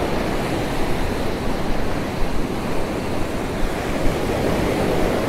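Ocean surf breaking and washing up the beach, a steady rush of water.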